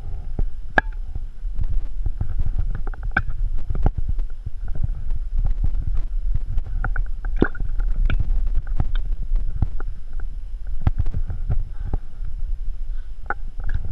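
Water sloshing and knocking in a carried water bottle as the climber moves, with irregular clicks and scrapes of hands and clothing on rock, over a steady low rumble.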